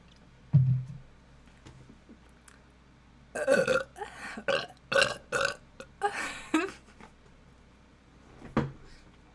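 A person burping: a short, deep burp about half a second in, then a run of several louder, voiced bursts from about three to seven seconds in, and one more short one near the end.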